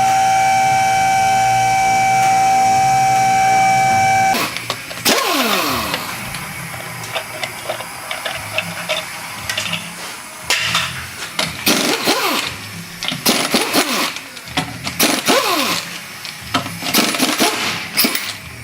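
Power wrench loosening the 15mm strut-mount nuts. It runs at a steady high whine for about four seconds, then stops suddenly. After that come repeated short bursts that wind down in pitch, with clicks and metal clanks between them.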